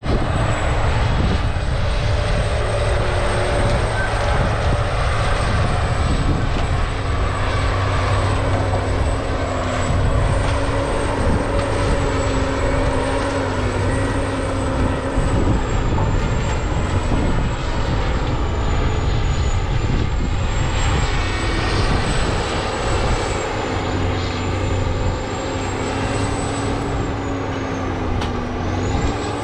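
Diesel engine of a steel-wheeled landfill compactor working steadily, with a high whine that wavers slowly in pitch over a lower engine tone that rises and falls a little.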